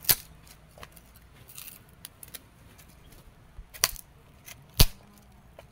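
Small fire crackling as it catches, with a few sharp pops: one right at the start, then two more about four and nearly five seconds in, the last the loudest, with fainter ticks between.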